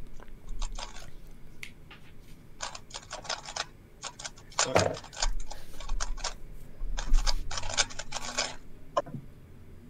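A 3x3 speedcube being turned fast through a solve: rapid plastic clicking in several quick bursts with short pauses between them, starting about three seconds in and stopping near the end.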